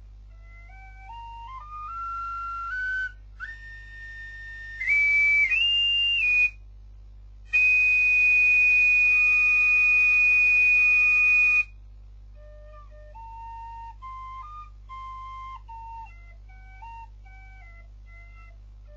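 Small end-blown flute playing an improvised march-like melody. A phrase climbs stepwise, then come loud, breathy high notes and one long shrill held note in the middle, followed by a softer, lower phrase near the end.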